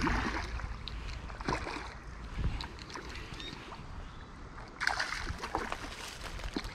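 A hooked common carp splashing and thrashing at the surface in shallow water at the bank, in irregular bursts: at the start, about a second and a half in, and again about five seconds in, over a low rumble.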